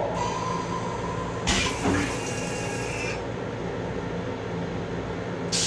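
LIRR M7 railcar toilet flush cycle: a thin whine starts, then a loud rush of water for about a second and a half, over the train's steady hum. Another hissing rush starts near the end.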